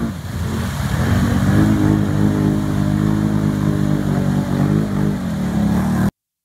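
ATV engine held at high revs under heavy load while its tires churn through deep mud, the note holding steady before falling away near the end. The sound then cuts off abruptly.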